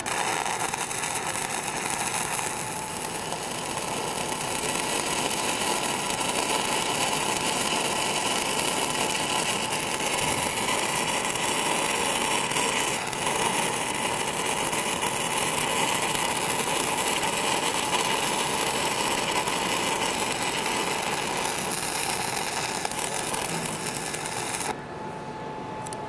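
Stick-welding arc from a 6010 electrode running a downhill root pass on beveled steel plate: a steady, loud crackle and hiss that stops about a second and a half before the end.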